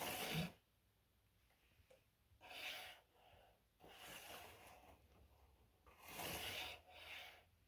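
A person breathing close to the microphone: about five soft, hissy breaths, each under a second long.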